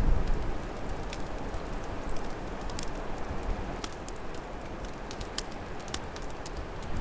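Open fire crackling with scattered sharp pops, over a steady rush of storm wind. A wind gust is loud at the very start and eases off within about half a second.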